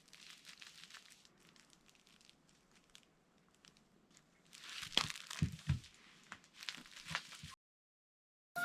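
A kitten playing with a long tail-shaped cat toy makes faint rustling and crinkling with scattered clicks, then a few soft thumps about five seconds in. The sound stops abruptly shortly before the end.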